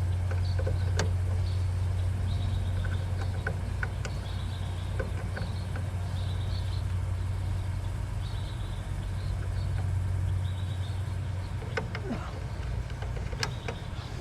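Steady low machine hum, like a running motor or engine, with scattered small clicks and taps from handling parts and faint repeated high chirps.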